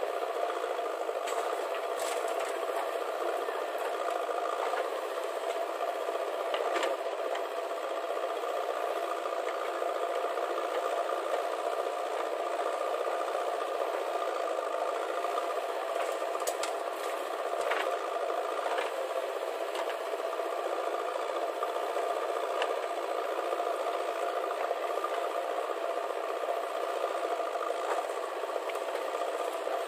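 Diesel engine of a JCB 3DX backhoe loader running steadily under load while it digs and loads soil, with the tractor running alongside. A few short, sharp clanks come through, about two seconds in, near seven seconds and twice a little past the middle.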